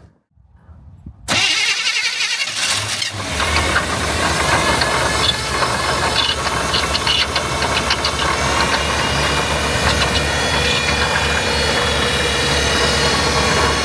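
1988 GMC pickup's engine cold-started: the starter cranks about a second in, the engine catches within a couple of seconds and then runs steadily with some knocks.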